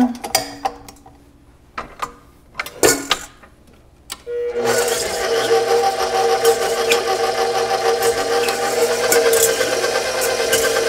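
A few clicks and knocks as the paddle attachment is fitted, then about four and a half seconds in a KitchenAid stand mixer's motor starts and runs at a steady speed with a constant hum and whine.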